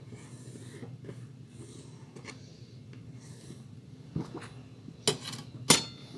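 Pencil scratching across paper in a few strokes, drawing a line along a ruler. Near the end come three sharp clicks as the steel ruler is lifted off the paper.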